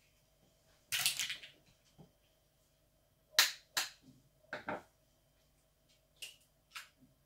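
Eggshells cracking and clicking as eggs are broken open by hand to separate the yolks from the whites. The sharp cracks and taps come in small groups: a cluster about a second in, the loudest pair around three and a half seconds, and lighter taps near the end.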